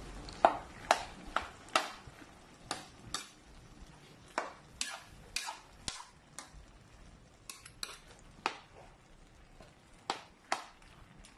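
A spatula scrapes and clacks against a metal pan while stirring jackfruit and dried fish. The sharp knocks come irregularly, with the loudest and quickest run in the first couple of seconds.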